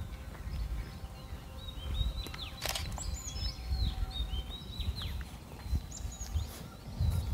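Birds chirping, many short high twittering calls, over a low rumbling background, with a sharp click about two and a half seconds in.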